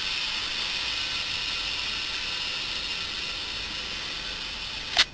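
Compressed air hissing steadily through a tyre inflator gun into a car tyre, fed by a small hermetic fridge compressor. About five seconds in there is a short sharp burst, and the hiss drops away as the inflator trigger is let go.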